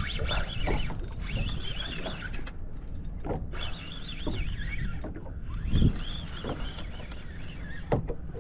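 Fishing reel being wound in with the rod bent under load, its gears giving a wavering high whine in three runs with short breaks between. A few low thumps sound underneath, the loudest about six seconds in.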